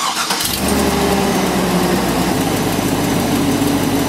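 2003 Chevrolet Silverado pickup's engine running at idle, steady and loud, settling to a slightly lower note about two seconds in, after a few clicks at the start.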